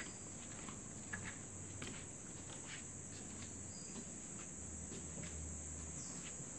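Steady high-pitched insect chorus with faint, irregular taps and clicks.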